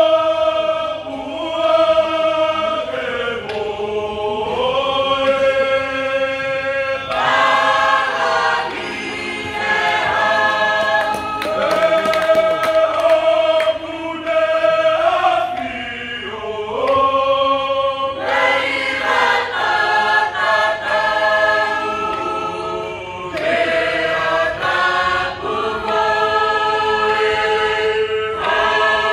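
Tongan lakalaka chorus of many voices singing a slow chant in parts, holding long chords that shift every few seconds.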